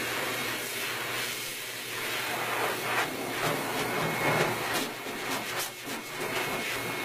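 High-velocity pet grooming dryer blowing air through its hose and nozzle: a steady rushing hiss with a faint high whine, surging louder and softer in the second half as the nozzle works through the dog's coat.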